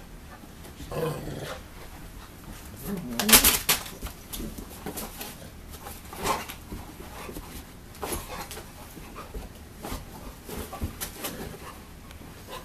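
Olde English Bulldogge making dog noises while playing roughly, with short scuffles and knocks and one loud, sudden burst about three and a half seconds in.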